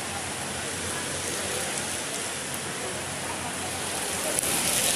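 Heavy rain falling steadily on a wet road, an even hiss that gets a little louder near the end.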